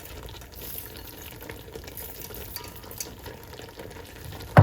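Soft scraping and light ticks of fried onions being spread over a layer of par-cooked rice in a pot, over a steady low hiss.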